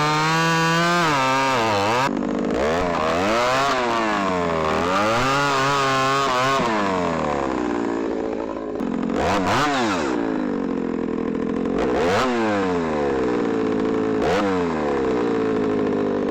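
Ported and piped Stihl MS310 two-stroke chainsaw with a 28-inch bar running at high revs, very loud. About two seconds in, its pitch starts sagging and climbing back again and again as the bar bogs into and clears cuts through cherry slabwood.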